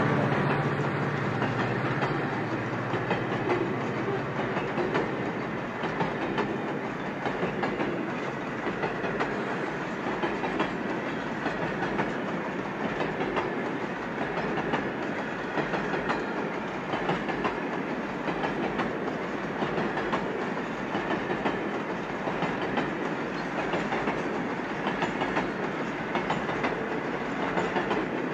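Loaded grain hopper wagons of a long freight train rolling past, their wheels clicking steadily over the rail joints. A low diesel locomotive hum from the departing engines fades out about two seconds in.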